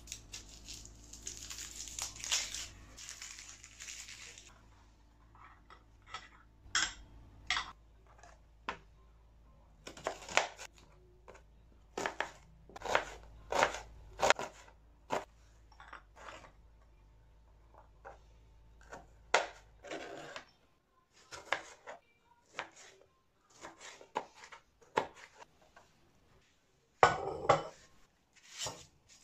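A kitchen knife cutting garlic and onion on a plastic cutting board: a rustling at first, then many irregular sharp knocks of the blade on the board. Near the end, a brief loud pour as rice goes into a glass bowl.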